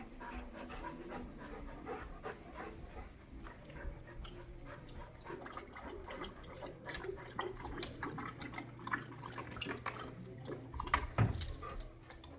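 Two dogs playing: panting and scuffling with many small clicks, and a louder sudden burst near the end.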